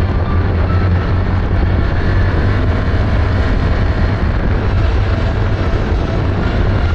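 Can-Am Outlander XMR 1000 quad's V-twin engine running while the quad is under way, a steady low drone.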